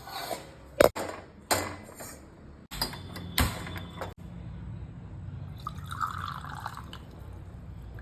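Kitchen handling sounds from quietly making a snack: a few sharp clicks and knocks in the first four seconds, then a short soft rush of noise lasting about a second near six seconds in, like a pour.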